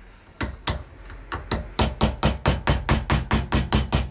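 Quick repeated blows struck at the rusted-fast scabbard of a WW2 German bayonet to drive it off the blade, a few spaced strikes at first, then speeding up to about five a second.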